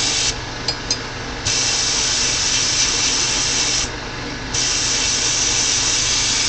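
Sandblasting cabinet gun blasting masonry sand with compressed air: a steady loud hiss that cuts out briefly twice, with a couple of small clicks in the first pause, as the trigger is let go and pressed again. A steady low hum runs underneath.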